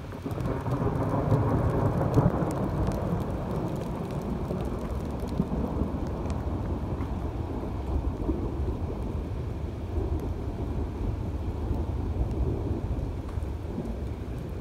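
Rainy outdoor ambience dominated by a heavy, steady low rumble that swells about a second in and then holds.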